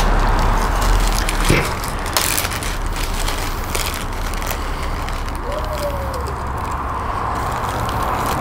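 Steady rushing background noise with a low rumble, broken by a few sharp clicks and crinkles of packaging being handled.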